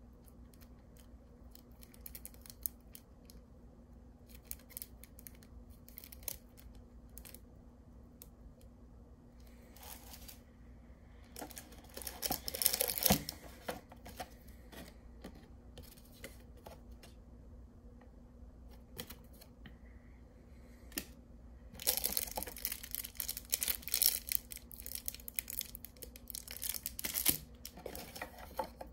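Trading cards and plastic sleeves being handled in a cardboard box: scattered clicks and rustling, with louder stretches of crinkling plastic about twelve seconds in and again from about twenty-two seconds to near the end.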